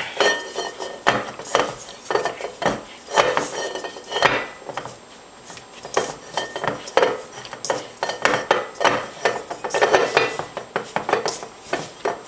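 A utensil scraping and knocking against a stainless steel mixing bowl as a stiff, shaggy bread pre-ferment is stirred to work in the dry flour. The strokes come irregularly, about one or two a second, with a short pause near the middle.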